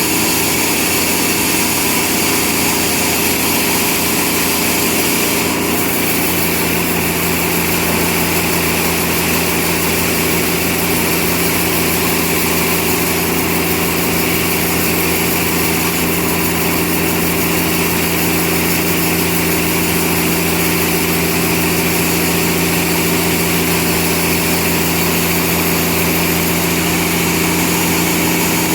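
Sawmill machinery running steadily: an even engine-like drone that holds the same pitch and loudness throughout.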